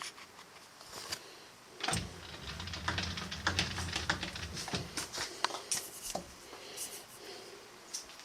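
Irregular clicks and clatter of metal parts and tools being handled at a workbench, with a low hum for about three seconds starting about two seconds in.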